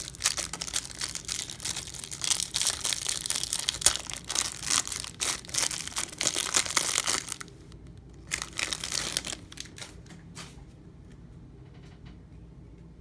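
Clear plastic wrap crinkling and tearing as it is peeled off a stack of baseball cards, dense for about seven seconds. A second short burst of crinkling follows about a second later, then only faint taps of cards being handled.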